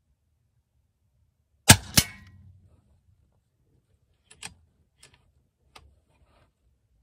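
Daystate Alpha Wolf Safari HP .22 PCP air rifle firing one shot: a sharp crack with a second sharp report about a quarter second later. Then three or four light clicks as the side lever is cycled to chamber the next pellet.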